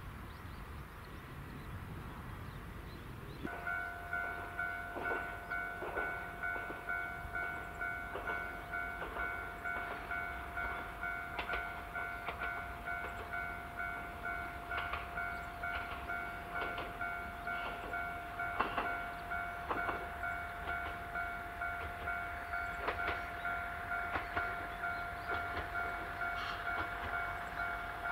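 Japanese railway level-crossing alarm ringing, starting about three and a half seconds in: an electronic bell that repeats evenly about one and a half times a second, the signal that a train is approaching.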